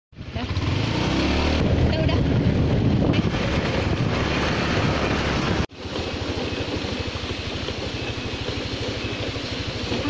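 Motorcycle engine running while riding. The sound is rougher and louder for the first half, then breaks off sharply a little over halfway and picks up again as a steadier, evenly pulsing engine note.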